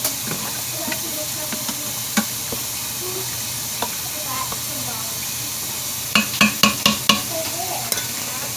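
Food sizzling in the Instant Pot while it is stirred, a steady hiss with scattered clicks of the utensil. About six seconds in comes a quick run of five or six sharp knocks.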